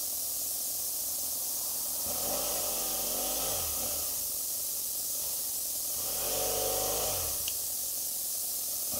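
Steady wind hiss over a helmet-mounted camera as a BMW F700GS motorcycle filters slowly through traffic. The bike's parallel-twin engine note rises and falls twice, about two seconds in and again about six seconds in.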